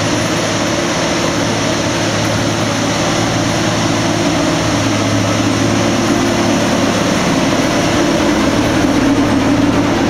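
Claas Lexion combine harvester with a corn header driving past at close range, its diesel engine and running gear making a steady heavy mechanical drone that swells a little as the machine goes by.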